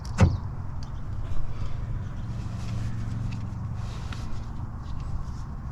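A sharp knock a moment in, then a few faint clicks from the door handle and its mounting hardware being handled in the door, over a steady low hum.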